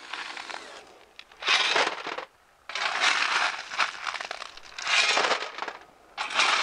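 Shovel scraping into a pile of crushed granite stone and tipping it into a galvanized steel wheelbarrow: repeated crunching scoops and rattling pours, about four loads with short pauses between.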